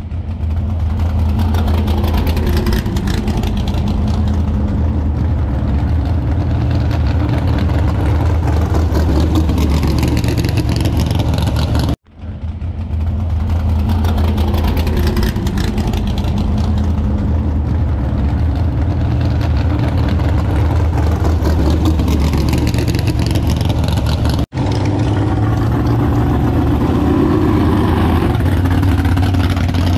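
A car engine running steadily at idle, a low even drone, broken by two brief drop-outs.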